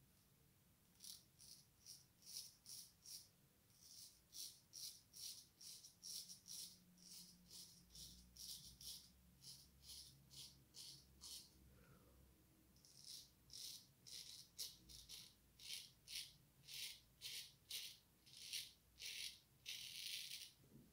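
Faint, quick scraping strokes of an antique French frameback straight razor (Antoine Touzet, Swedish steel blade) cutting through lathered stubble, about two to three strokes a second. The strokes stop for about a second and a half midway, and a longer stroke comes near the end.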